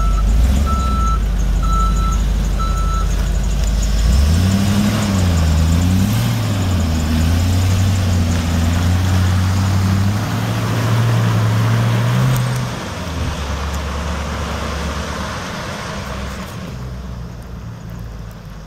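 2006 GMC W4500 box truck with its 6.0L gas V8: the backup alarm beeps steadily for the first few seconds and stops. Then the engine revs up, its pitch rising and dipping before climbing steadily, and drops about twelve seconds in as the truck drives off and fades away.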